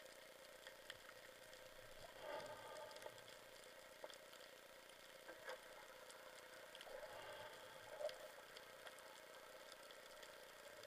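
Faint underwater ambience heard through a camera housing: a steady low hum with scattered faint clicks and a few soft swells.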